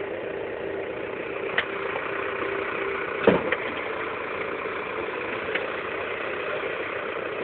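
New Holland TD 5050 tractor's diesel engine idling steadily, with a sharp knock about a second and a half in and a louder short thump a little after three seconds.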